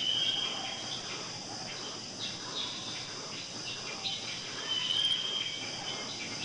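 Steady high-pitched drone of crickets or other insects, with two short whistled bird calls, one right at the start and one about five seconds in.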